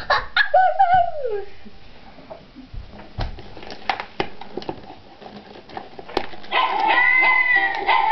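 A dog's howl gliding down in pitch in the first second or so, followed by scattered light clicks and knocks. Music with a repeating pattern starts near the end.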